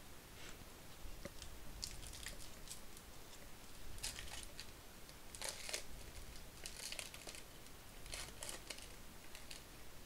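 Foil wrapper of a Topps baseball card pack crinkling and tearing as it is ripped open by hand, in a series of short crackly bursts.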